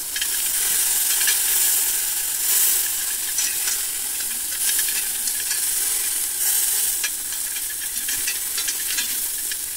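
Onion, dried red chilli and spice masala sizzling in coconut oil in a wide metal pan: a steady hiss with scattered small crackles.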